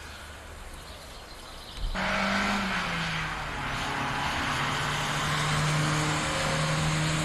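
A motor running steadily with a low, even drone and a hiss over it, starting abruptly about two seconds in at a cut in the footage.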